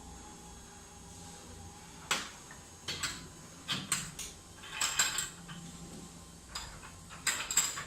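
Metal tools and parts clinking and knocking, a string of sharp strikes starting about two seconds in, the loudest in the middle and near the end, over a faint steady hum.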